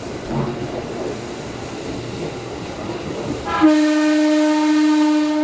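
Electric train running on the rails, heard from inside the carriage, then the train's horn sounds a single steady, loud blast starting a little over three seconds in and still held at the end.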